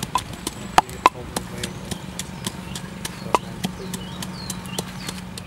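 Wooden pestle pounding red chilies and garlic in a wooden mortar: a steady rhythm of dull knocks about three a second, with a few harder strikes about a second in and again past three seconds.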